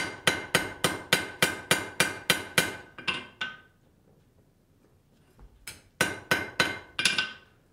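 Hand hammer striking a red-hot steel rod on an anvil in light, even blows about three a second, each with a ringing tone. The blows stop for about two and a half seconds partway through, then resume for a few more. The smith is knocking the square corners and edges off a drawn-out point to round it.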